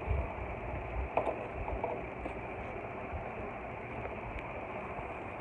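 Steady background hiss with a few faint clicks and taps, clustered about a second in and once more later.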